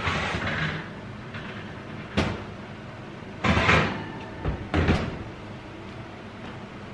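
Kitchen oven being emptied: metal rack and baking pan scraping and clattering, then the oven door shut with two knocks about five seconds in.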